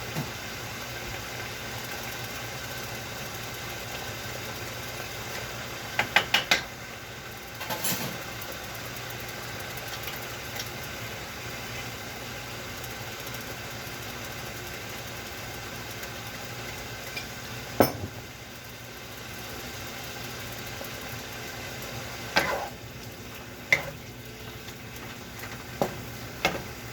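Food sizzling in a pan over a steady low hum, with a spatula knocking and scraping against the pan several times as the food is stirred.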